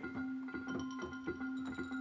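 Yamaha electronic keyboard playing a steady held low note under quick repeated struck notes in a mallet-percussion voice like vibraphone or marimba. Higher bell-like notes join in about two-thirds of a second in.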